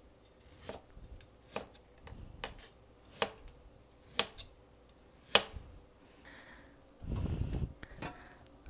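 Kitchen knife cutting green bamboo shoots into chunks on a wooden cutting board with the roll cut: six sharp knocks of the blade on the board, about one a second. Near the end, a short stretch of louder, noisier handling.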